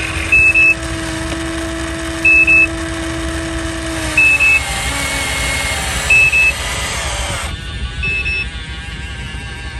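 Electronic warning beeper of a radio-controlled construction model sounding a short high double beep about every two seconds. Under it, a steady electric motor whine winds down and stops about four and a half seconds in.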